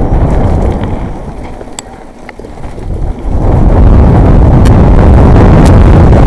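Wind buffeting an action camera's microphone over the rumble of a mountain bike rolling fast over a wet trail, easing off about two seconds in and coming back loud past the middle, with a few sharp clicks and knocks from the bike.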